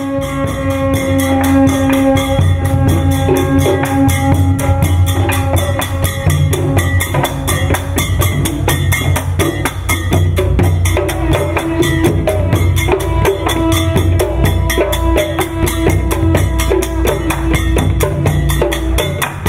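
Reconstructed ancient Khmer military orchestra playing ritual music: long held horn notes from trumpets and conches over fast, steady strokes of cymbals and drums. The held note changes partway through.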